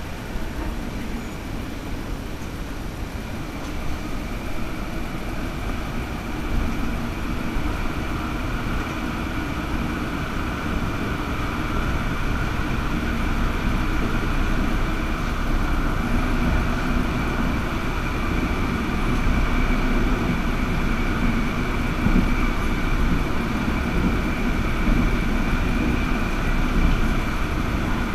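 Inside a Stadler Variobahn light-rail tram under way: the running rumble of wheels on rail and a steady high whine. It grows gradually louder as the tram runs into and through a tunnel.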